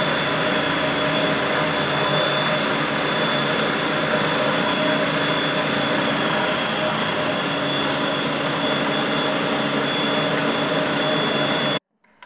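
Kenwood food processor motor running steadily with a whine, its blade grinding roasted peanuts into a thick, oily paste. It is switched off and stops abruptly near the end.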